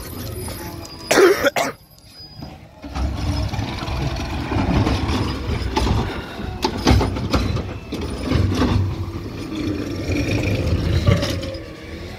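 Natural-gas automated side-loader garbage truck working its lifting arm: the engine runs steadily under the hydraulics while the arm grips, lifts and dumps a trash cart, with repeated clanks and knocks. A sharp loud noise comes about a second in.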